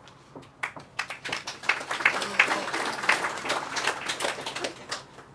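Audience applauding by hand. A few scattered claps swell into steady applause about a second and a half in, then die away near the end.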